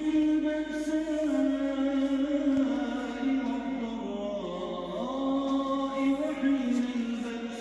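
Background vocal chant: one voice holding long notes that glide slowly up and down.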